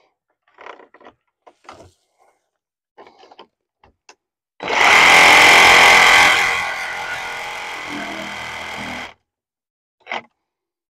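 A few light clicks and knocks, then a power tool starts about halfway through. It runs loud for about two seconds, settles lower, and cuts off abruptly, followed by one more knock.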